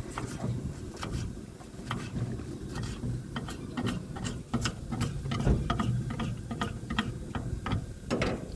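Metal utensils clicking and tapping on a dosa griddle in a quick, irregular run of sharp clicks, over a steady low rumble.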